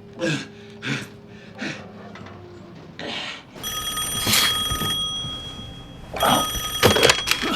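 A man's short grunts, then a telephone bell ringing steadily from about halfway through, with a few sharp knocks over the ringing near the end.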